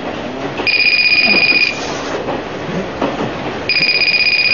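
Electronic ringer going off in about one-second warbling bursts, twice, in the pattern of a telephone ring, over a steady background noise.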